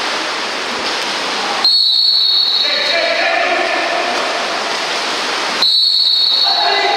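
Referee's whistle blown twice, each a steady shrill blast of about a second, some four seconds apart, over shouting voices and a rush of splashing water.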